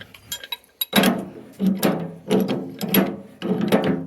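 Hand work with metal tools on a tractor loader's hydraulic cylinder: about five short mechanical grating strokes, each under half a second, starting about a second in.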